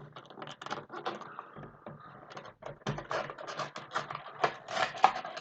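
Plastic Heroclix figures and their packaging being handled during an unboxing: a quick, uneven run of clicks, taps and rustles.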